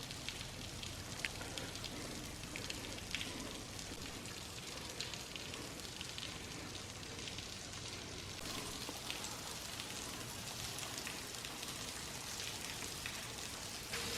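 Spring-fed waterfall spilling down a cliff into a deep sinkhole: a steady patter of falling and splashing water, much like rain, growing slightly brighter about halfway through.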